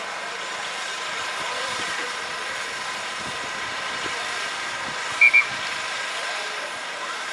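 Referee's whistle giving two short, sharp blasts in quick succession about five seconds in, over a steady outdoor background hum.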